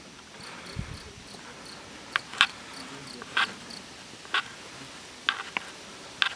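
Crickets chirping in a faint, steady, evenly spaced high pulse. About seven short, sharp crunches and crackles stand out louder above it, close by, mostly in the second half.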